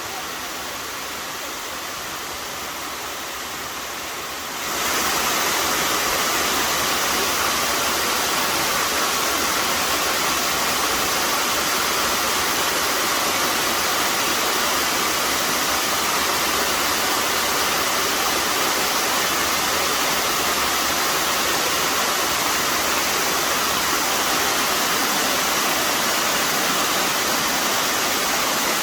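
Waterfall rushing steadily, growing louder about five seconds in and then holding level.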